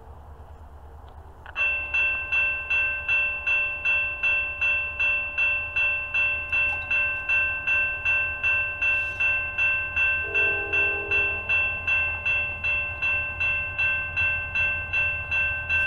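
Railroad grade-crossing warning bell that starts suddenly about a second and a half in and rings steadily at about three strikes a second: the crossing's warning activated by the approaching train.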